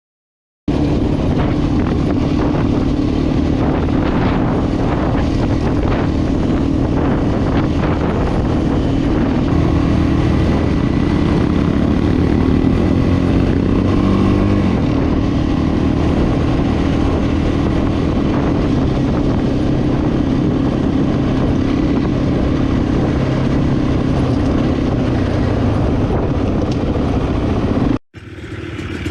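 Yamaha Blaster 200 quad's single-cylinder two-stroke engine running loudly, its pitch steady with small rises and falls. It cuts out briefly about a second before the end.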